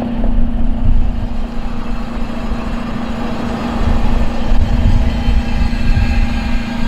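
Toyota Tacoma pickup rolling slowly with its engine running steadily, with a faint scraping from the front wheel, which the owner suspects is the brake dust cover rubbing on the rotor after a CV axle replacement.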